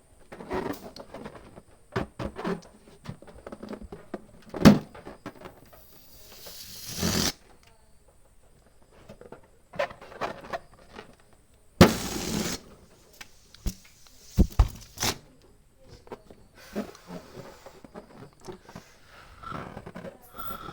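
Balloons being handled and pumped up with a hand pump: irregular taps, knocks and rubbery rubbing, with bursts of rushing air, one swelling from about six seconds in and another near the middle.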